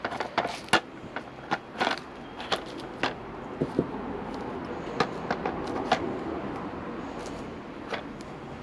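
Clear plastic protective film crinkling and crackling as a tinted fly screen is handled, with many irregular small clicks and knocks from the screen and its brackets.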